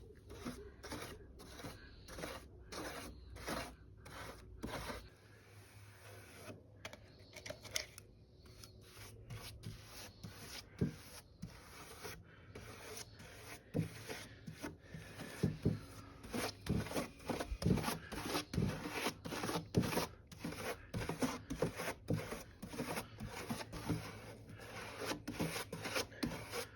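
Wood being worked by hand in a long series of short, rough rubbing and scraping strokes, like rasping or sanding. The strokes get louder and closer together about halfway through.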